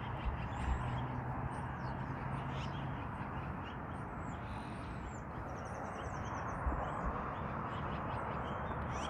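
Birds calling, short high chirps scattered throughout, with a quick rapid trill a little past the middle, over a steady background wash of outdoor noise.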